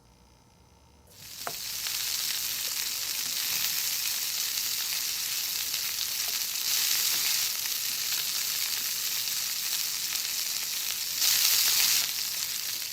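A steady high hiss starts about a second in and runs on, growing louder twice for a moment, then stops abruptly near the end.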